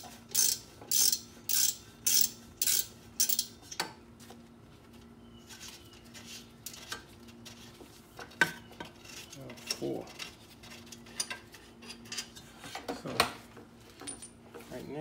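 Hand ratchet clicking in quick strokes, about two a second, as a stubborn hub bolt is worked loose. After a few seconds the strokes stop and give way to scattered metal clinks and taps from tools and parts being handled.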